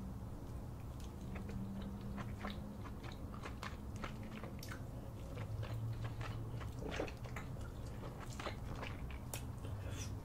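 Close-miked eating sounds: biting into and chewing a king crab leg coated in thick cheese sauce, with many short mouth clicks throughout.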